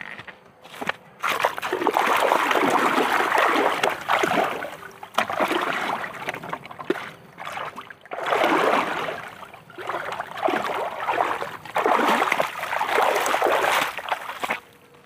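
Water splashing and sloshing in about five bursts of one to three seconds each, with quieter gaps between.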